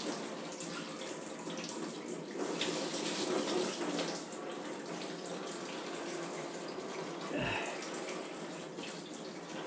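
Engine coolant pouring in a steady stream from a disconnected, lowered radiator hose into a drain pan as the tractor's cooling system is drained.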